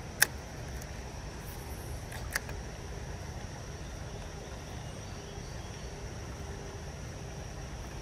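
Steady low rush of a shallow creek, with insects droning in one steady high pitch. Two sharp clicks come through, a loud one right at the start and a softer one about two seconds later.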